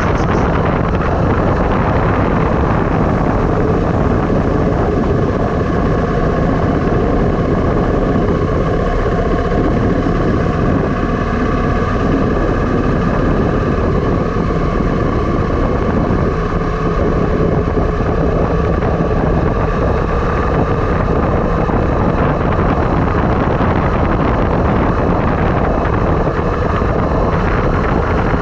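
Steady rush of wind on the action camera's microphone and road noise during a downhill ride, with faint tones that drift slowly in pitch.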